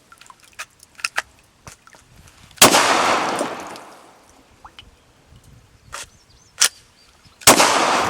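Two Glock pistol shots about five seconds apart, each followed by a long rolling echo, with small metallic clicks between them. The pistol is being fired while fouled with water and sand, and is judged to fail the test.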